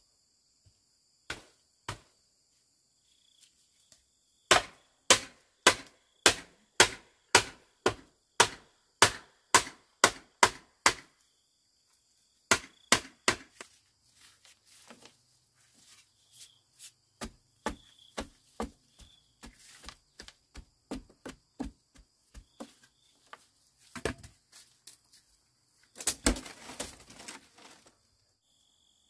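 A blade chopping into wood, likely bamboo, in a steady rhythm of about two strokes a second, then lighter, irregular cuts. There is a short noisy rustle near the end. Crickets chirr steadily in the background.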